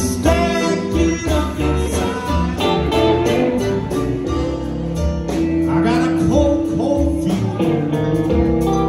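A live band playing with electric guitars, bass, drums and saxophone, amplified through a PA, over a steady beat.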